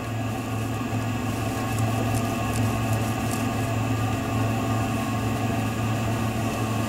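Steady low machine hum with a strong drone, even throughout.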